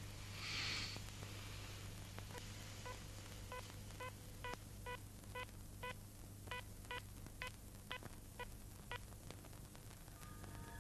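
Faint electronic beeping: a short pitched pip about twice a second for several seconds, over a low steady hum.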